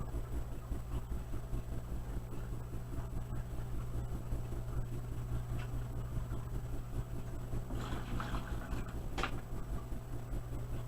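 Steady low hum of a small aquarium water pump running in a Betta Falls tank, with a few light clicks and one sharper tap near the end.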